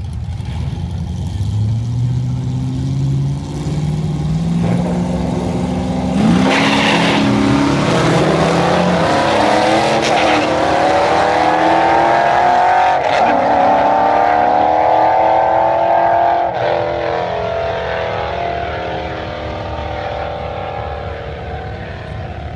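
Two race cars running side by side, their engines revving up through the gears with a drop in pitch at each shift. The engines grow louder as the cars accelerate, then fade as they pull away down the track.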